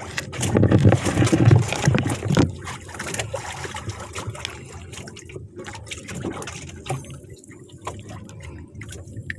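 A freshly caught red grouper and a wet handline being handled up close: water trickling and dripping, with many small clicks and knocks. It is loudest in the first two and a half seconds, then quieter.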